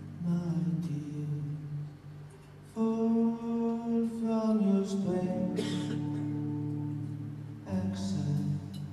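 Live instrumental music from a small band on guitar and keyboard: slow, held notes and chords that shift every two or three seconds, with a couple of brief cymbal-like washes.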